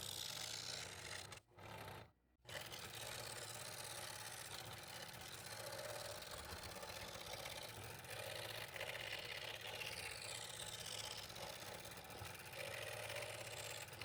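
Scroll saw running with a number 5 blade, cutting through double-stacked quarter-inch red oak: a steady motor hum with the rasp of the reciprocating blade. The sound breaks off briefly twice, about one and a half and two seconds in.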